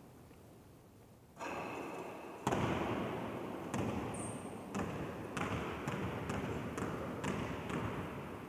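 A basketball shot strikes the hoop with a brief ringing clank about a second and a half in. The ball then bounces on the hardwood gym floor in a series of echoing thuds, at first about a second apart and then about two a second.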